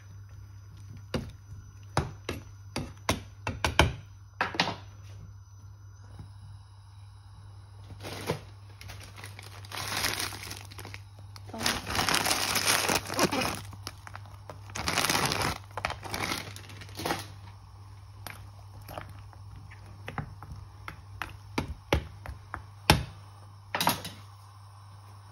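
A plastic bag of raw king prawns crinkling and rustling loudly for several seconds as it is handled and opened, with sharp clicks and knocks of a ladle against a saucepan before and after.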